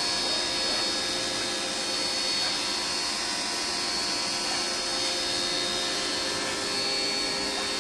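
Electric pressure washer running steadily during an air-conditioner cleaning, a motor hum with a steady high whine.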